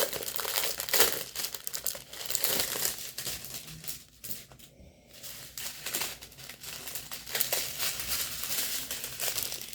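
Plastic packaging crinkling as small bags of diamond painting beads (drills) are handled, with a brief lull about four seconds in.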